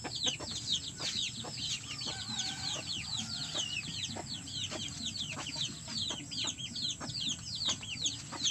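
Young chicks peeping nonstop: a fast run of short, high, falling peeps, several a second, with a few soft clicks among them.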